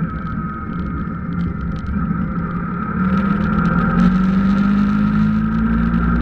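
Car driving, heard from inside: a steady engine hum with road noise. About three seconds in it gets louder and the engine note rises slowly as the car accelerates.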